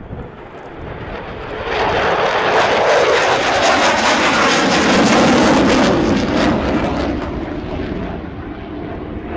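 Fixed-wing military aircraft flying past: its engine noise swells, peaks in the middle and fades away, dropping in pitch as it passes.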